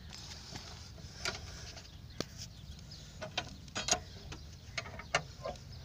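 Irregular light metallic clicks and clinks of hand tools and a scissor jack's crank rod being handled as the car is about to be let down off the jack.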